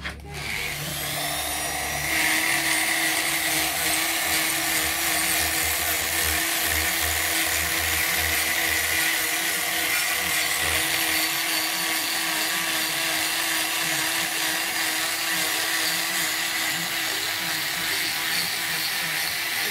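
Makita straight die grinder with a sanding bit spinning up in the first couple of seconds, then running at a steady high whine as it sands carved wood.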